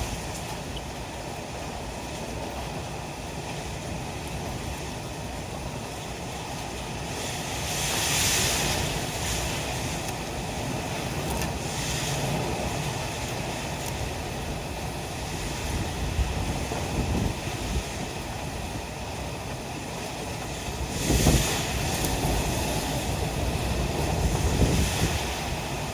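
Typhoon wind and rain, a steady rushing noise with wind buffeting the microphone, swelling louder about eight seconds in and again about twenty-one seconds in.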